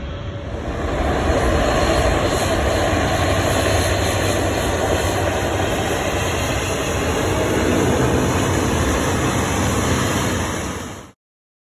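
Jet airliner engine noise, a loud steady rumble that swells about a second in and cuts off abruptly near the end.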